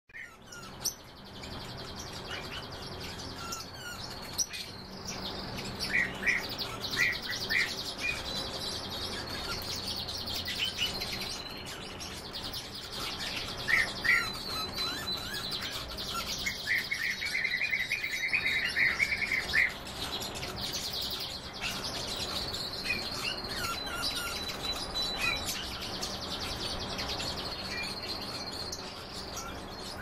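Many caged songbirds chirping and singing together: a continuous high twittering warble with short, clearer calls dropped in, and a rapid trill a little past halfway. A steady low hum runs underneath.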